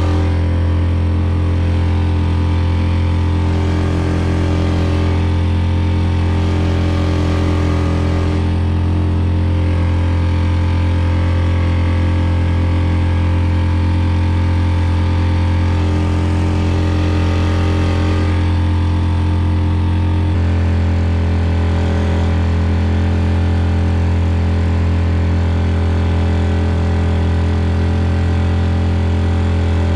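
Four-stroke outboard motor running steadily at a constant throttle, driving an inflatable boat through the water. Its note shifts slightly about two-thirds of the way in.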